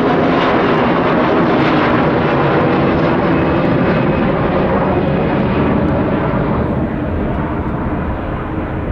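Mitsubishi CRJ-900 regional jet's turbofan engines at takeoff power on departure, a loud, steady jet noise that eases and loses its high end after about six seconds as the aircraft climbs away.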